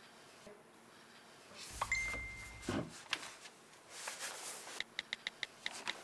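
Smartphone texting sounds: a short steady beep about two seconds in, then near the end a quick even run of keyboard tap clicks, about six a second.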